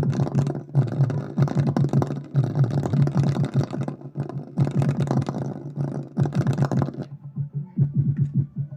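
Electronic music with a heavy repeating bass line and a beat. The fuller, higher part drops out about seven seconds in, leaving mostly the bass.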